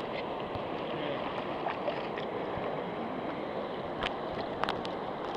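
River water rushing steadily past a gravel bar, with a few short clicks about four seconds in.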